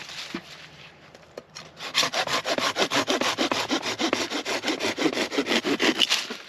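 Small hand saw cutting through a branch in quick, even back-and-forth strokes. The sawing starts about two seconds in and stops just before the end.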